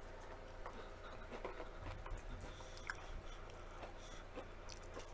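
Faint chewing of deep-fried battered kale, with scattered small clicks and crackles from the mouth, over a steady low hum.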